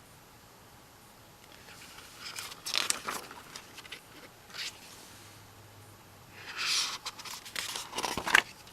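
Paper and plastic album packaging rustling and crinkling as it is handled, in short bursts a couple of seconds in and again past the middle, with a few light clicks toward the end.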